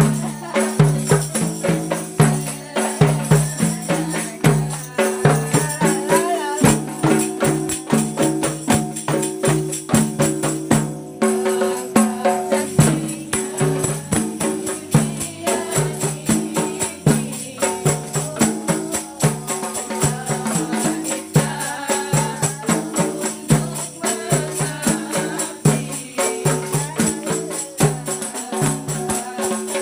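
Rebana frame drums and jingle tambourines played together by hand in a steady, even rhythm: low drum strokes under a constant shimmer of jingles.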